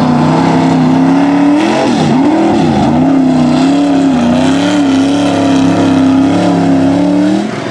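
Lifted Ford pickup's engine running hard at high revs as the truck churns through a deep mud pit. The pitch drops sharply and climbs back twice about two and three seconds in, then wavers around a high steady note, and cuts off shortly before the end.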